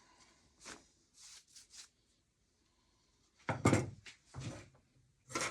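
Pieces of wood being handled on a bench: a series of short wooden knocks and clunks, small ones at first and the loudest about three and a half seconds in.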